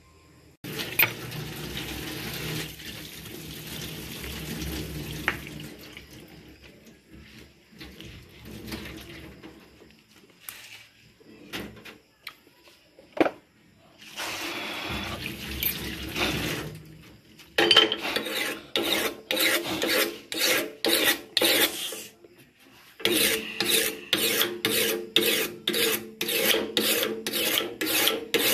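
A kitchen knife scraping the scales off a red devil cichlid on a plastic cutting board, in quick even rasping strokes about two or three a second. There are two runs of strokes with a short pause between them in the second half. Earlier there are stretches of steady rushing noise.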